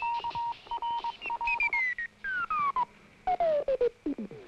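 Short-wave communications receiver being tuned: a Morse code signal beeping on and off at a steady pitch, then whistling tones that slide down in pitch as the tuning dial is turned across the band.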